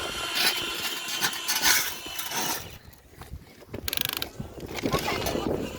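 Small plastic gearboxes of remote-control toy construction vehicles grinding and clicking as they run, with a short lull about halfway through.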